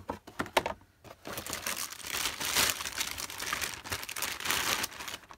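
A clear plastic packaging bag crinkling as toy parts are handled and unpacked, after a few light plastic clicks and knocks in the first second.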